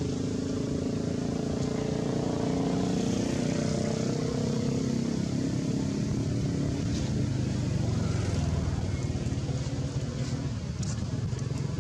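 Steady low rumble of a motor vehicle engine, its pitch drifting slowly, with a few faint ticks in the second half.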